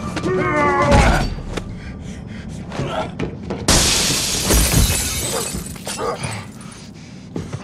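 Movie fight sound effects: a few sharp knocks and thuds, then about four seconds in a loud crash of glass shattering and breaking that dies away over about a second, followed by scattered smaller knocks.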